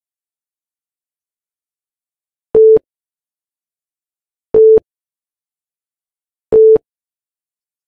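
Countdown timer beeps: three short, loud electronic tones of one steady mid pitch, evenly spaced two seconds apart, with dead silence between them.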